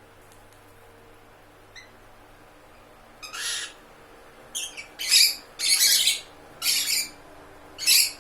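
Lovebird calling: a faint chirp, then from about three seconds in a series of about six loud, harsh, high-pitched squawks, each lasting well under a second.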